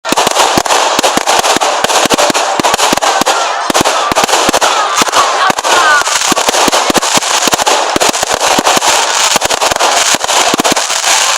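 Fireworks display going off in a dense, continuous barrage of rapid bangs and crackles, many per second.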